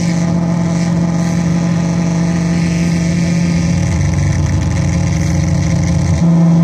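Metsään Dirty Drone Anarchy synth, three interacting triangle-wave oscillators, putting out a steady droning tone with many overtones. About four seconds in, the low tone breaks up into a rougher, wavering sound, then settles back to a steady drone near the end.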